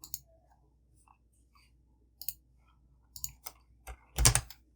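Computer mouse clicking, about half a dozen short sharp clicks at irregular spacing, the loudest a heavier cluster near the end.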